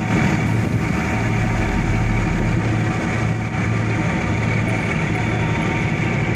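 Tugboat's diesel engine running steadily under way, heard from the deck as a deep, even hum with a rush of noise over it.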